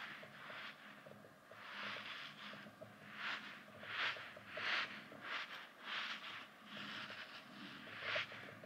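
A soft, stretchy yellow duck-shaped Daiso squeeze toy squishing and crackling as fingers squeeze and knead it. It gives a string of short, quiet squishes, about one a second, some coming closer together.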